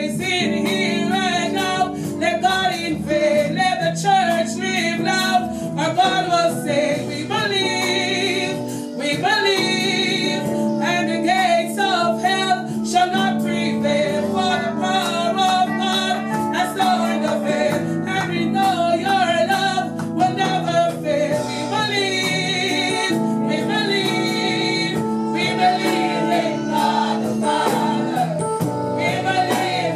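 Gospel singing by a choir or congregation with instrumental accompaniment, continuous and steady.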